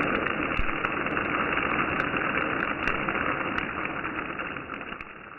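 Thin noodles deep-frying and puffing up in hot oil: a steady sizzle with scattered sharp pops and crackles, fading away near the end.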